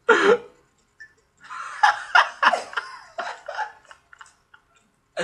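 Young men laughing: one loud outburst at the very start, then a run of short, choppy laughs lasting a couple of seconds.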